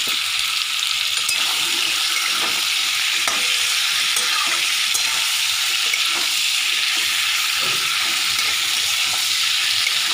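Masala-coated chicken pieces sizzling steadily in a hot pan, with a flat metal spatula stirring them and scraping the pan now and then.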